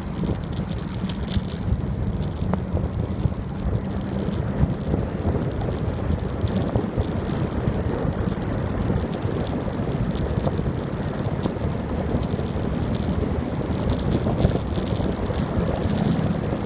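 Wind buffeting a phone's microphone on a moving bicycle, a steady low rumble, with scattered small rattles and clicks from the bike riding over the pavement.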